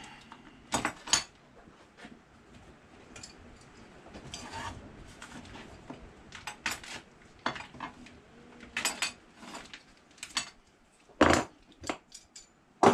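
The small steel spanners supplied with a trim router, handled and set down, clinking and clattering against each other and the workbench. It comes as a string of separate sharp clinks, with the loudest knock near the end.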